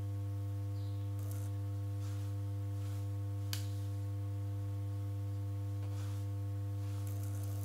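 Steady electrical mains hum, a low buzz with a ladder of higher overtones, over faint swishes of a makeup brush buffing powder onto the cheek. A single small click about three and a half seconds in.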